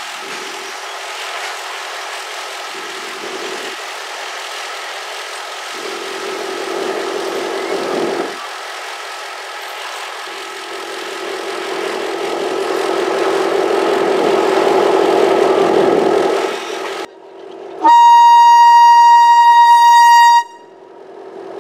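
MÁV class 418 diesel locomotive running with a steady engine drone as it pulls in. Near the end it sounds one long, loud horn note lasting about two and a half seconds.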